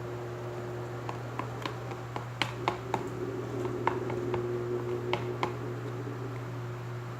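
Spoon clicking and tapping against a plastic bowl while stirring a glue-and-lotion slime mixture: a dozen or so light, irregular ticks over a steady low hum.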